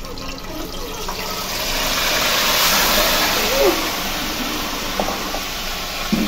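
Yogurt-marinated beef hitting hot oil in a karahi and sizzling, a loud hiss that swells a second or two in, then eases a little and keeps frying steadily.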